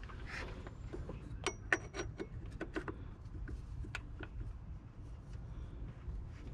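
Light metallic clicks and taps, a few with a brief high ring, as the AC compressor clutch plate is slid onto the compressor shaft and seated against the pulley. Most of the clicks come in a cluster a second or two in, with one more a little later.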